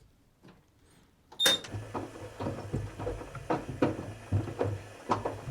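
Front-loading washing machine starting a cycle with a pair of sneakers inside: a click and a short high beep about a second and a half in, then repeated irregular thuds and knocks as the shoes tumble against the drum.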